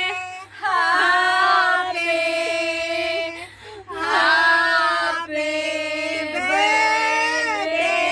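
A group of women singing together in long, drawn-out notes that slide in pitch, with short breaks between phrases.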